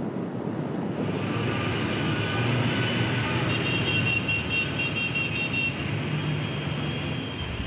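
A passing vehicle: a steady rushing engine noise that swells towards the middle, with a thin high whine at its loudest, then eases off slightly.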